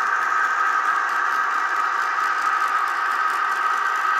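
Rapido GMD-1 N scale model diesel locomotive running under a heavy load up a grade: a steady diesel engine sound from its sound decoder's small onboard speaker, mixed with the rattle of the train on the track. The locomotive is slowing and close to stalling.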